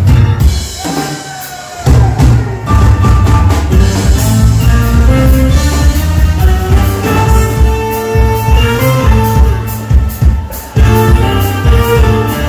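Live band playing a jazz groove: a saxophone carries the melody in long held notes over bass guitar, drum kit and keyboards. The band drops to a quieter break about half a second in, and the drums and full groove come back in at about two seconds.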